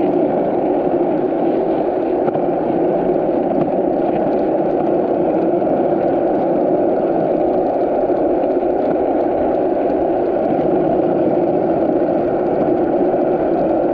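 Yamaha YZ125 two-stroke dirt bike engine running steadily while under way.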